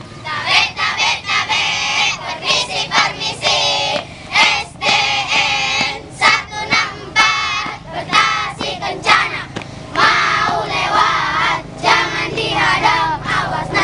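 A group of schoolchildren singing a marching song together in unison as they march, in short phrases.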